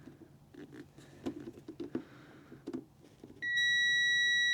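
Digital multimeter's continuity beep: one steady, high electronic tone lasting about a second and a half, starting near the end, as the probes bridge a blade fuse that tests good. Before it, light clicks and taps of the probes and fuse being handled.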